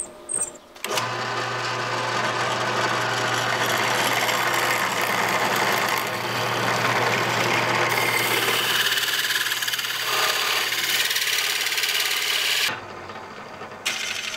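Benchtop drill press starting up and running steadily, its motor humming on a slow belt setting for metal, while a hole saw cuts through thin sheet metal backed by plywood; the cutting noise swells and eases as the saw is fed down. The motor switches off near the end and the sound drops sharply.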